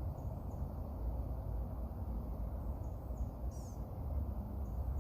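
Low, steady rumble of wind on the microphone, with a few faint, short, high bird chirps, one of them about three and a half seconds in.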